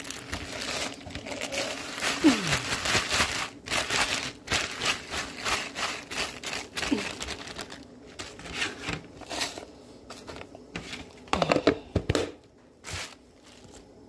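Plastic bag crinkling and rustling as it is handled, with a few knocks and scrapes of plastic containers and lids, the loudest cluster about eleven seconds in.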